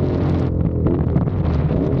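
CFMOTO 450SR's parallel-twin engine running on the move, with wind noise on the microphone. About half a second in the wind hiss drops, and the engine note wavers briefly near the middle.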